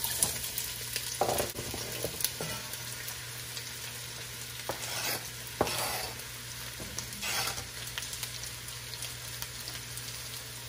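Sliced onion and chopped mushrooms sizzling as they hit hot olive oil in an enameled Dutch oven, a steady hiss with a few scrapes and knocks as they are pushed in off a cutting board.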